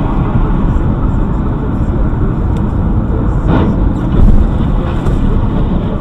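Dashcam-recorded road and engine noise inside a car driving at motorway speed, a steady dense rumble, with one louder burst of noise a little past halfway.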